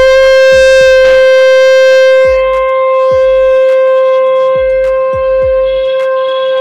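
Conch shell (shankh) blown in one long, steady, unbroken note that starts sharply.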